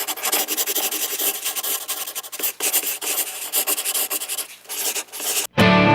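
Irregular scraping, rasping noise that stops abruptly about five and a half seconds in, as music with guitar begins.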